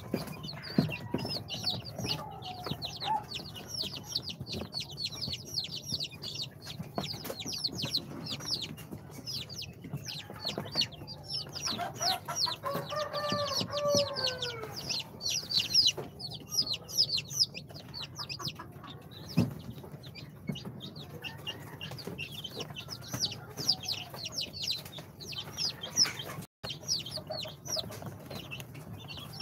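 A brood of day-old chicks (Brahma, bantam Cochin, Sultan and İspenç) peeping nonstop: many high, rapid, downward-falling cheeps overlapping from the whole group.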